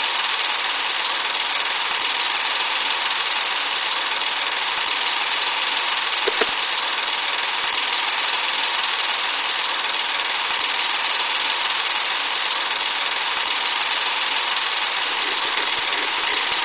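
Old film projector sound effect: a steady mechanical whirr and hiss with faint crackle, and one short click about six seconds in.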